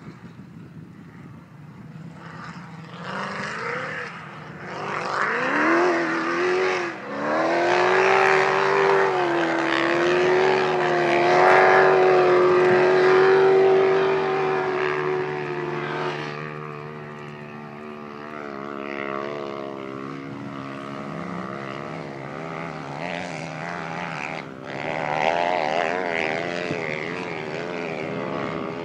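Yamaha YFZ450 quad's single-cylinder engine revving hard under full load up a steep cinder hill. The engine note climbs about five seconds in, holds high and loud for about ten seconds, then fades as the quad gets farther up the slope, with a second surge near the end.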